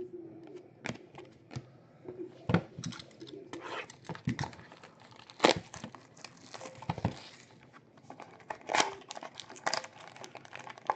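Trading-card pack wrappers crinkling and tearing as packs are opened and cards handled: irregular rustles and sharp crackles.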